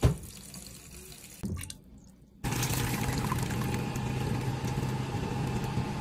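Water running from a tap onto cut vegetable stem pieces in a metal mesh strainer: a steady rush that starts suddenly about two and a half seconds in. Before that, a fainter, thin stream of water pours into a steel pot of the cut pieces.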